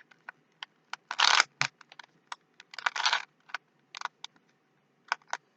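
Plastic Rubik's Cube being twisted by hand: scattered clicks of the layers snapping into place, with two longer scraping turns about a second in and about three seconds in.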